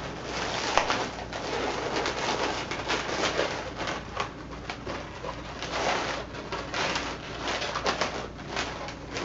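Latex balloons squeaking and rubbing against each other as a red balloon is twisted and wrapped around a yellow one.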